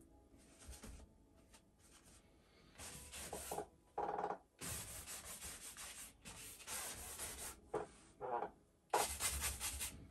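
Wide flat bristle brush scrubbing oil paint onto a stretched canvas: a run of rasping strokes, some short and some about a second long, the loudest near the end.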